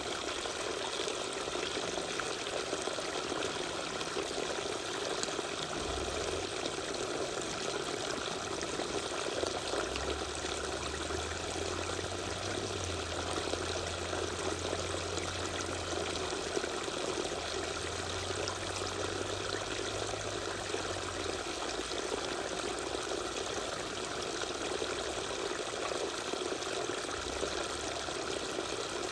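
Small waterfall pouring and splashing steadily, a continuous trickling rush of falling water. A faint low hum joins in for about ten seconds in the middle.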